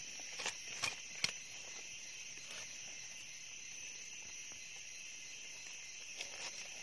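Steady, high insect chorus of forest crickets or cicadas, with a few sharp light clicks, mostly in the first second and a half.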